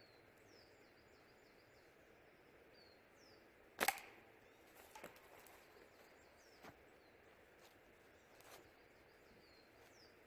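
One sharp crack about four seconds in: a slingshot shot, single bands firing a 9.5 mm steel ball at a hardened steel padlock, a shot that knocks the locked padlock open. Small birds chirp faintly throughout, and a few light ticks follow the shot.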